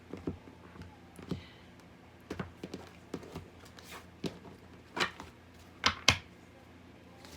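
Tarot cards being handled and laid on a table: about ten light, irregular taps and thunks.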